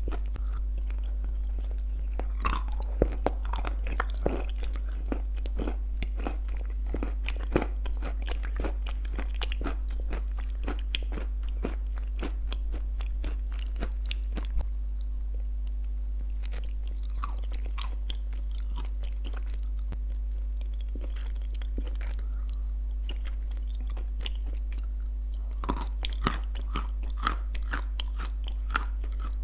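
Close-miked biting and chewing of crunchy clay made as shortbread cookies, a run of sharp crackling crunches. The crunches are dense through the first half, thin out in the middle and pick up again near the end.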